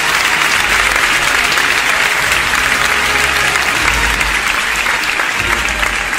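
Crowd applauding loudly at the close of a live Holy Week processional march.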